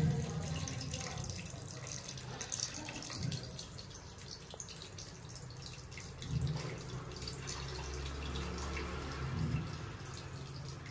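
Tamarind water poured from a steel bowl into a pot of vegetables, trickling and dripping. A low hum comes and goes underneath.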